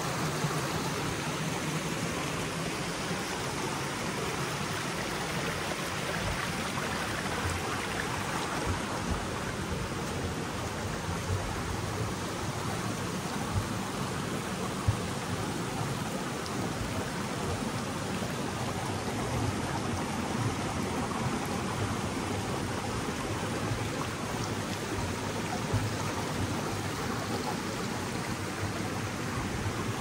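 Creek water rushing and splashing over rocks and small cascades, a steady even rush, with one brief knock about halfway through.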